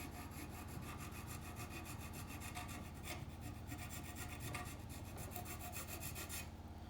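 Hand file rasping in quick, light back-and-forth strokes, taking a touch of material off a small bicycle hub part.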